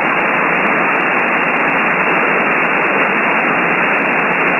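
Steady shortwave static from an RTL-SDR v3 receiver tuned to 14.242 MHz upper sideband on the 20 meter amateur band. It is band noise with nobody transmitting, an even hiss cut down to the voice range by the receiver's sideband filter.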